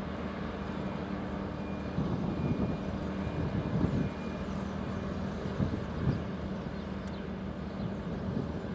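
Steady low drone of a ship's engine, with a few light gusts of wind on the microphone.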